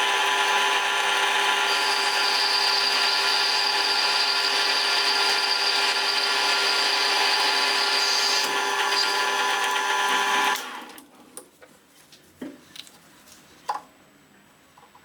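Handheld electric power tool running steadily with a high-pitched whine, then cutting off suddenly about ten seconds in, followed by a few light clicks and taps.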